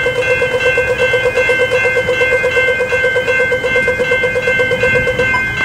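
Railway level crossing's General Signals E-Bell electronic bells ringing rapidly, a fast even run of strokes over steady ringing tones, warning of an approaching train as the boom gates lower. The lower-pitched run of strokes stops near the end while the steady ringing carries on.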